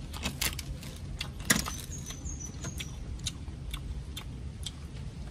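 Metal spoon clicking and scraping against the bones of a crispy deep-fried crocodile head and the foil-lined metal tray as meat is picked out, a series of sharp irregular clicks with one louder clink about a second and a half in.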